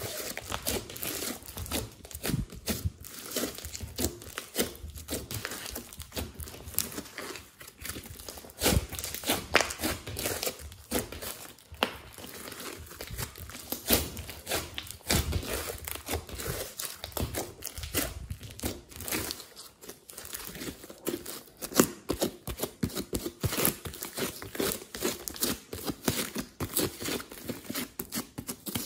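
Thick clay-textured slime with foam beads in it being squeezed, pressed and stretched by hand, giving a dense, irregular run of sticky crackles, pops and squelches.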